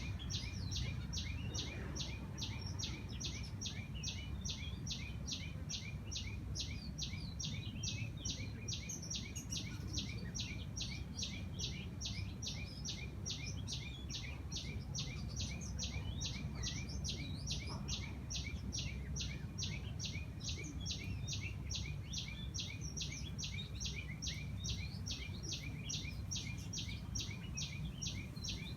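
Birds chirping in a garden over a high, steady pulsing that repeats about three times a second, with a constant low rumble of distant city noise underneath.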